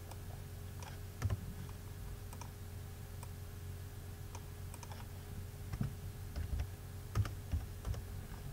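Computer keyboard keys and mouse clicks: scattered single taps, with a quicker run of them a little past the middle, over a faint steady hum.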